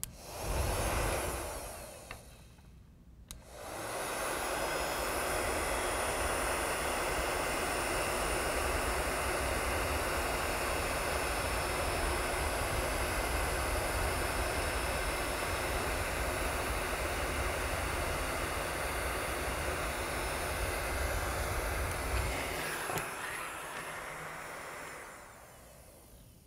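Electric heat gun blowing hot air to shrink heat-shrink tubing. After a short first blast and a brief pause, it runs steadily, then drops off and fades out a few seconds before the end.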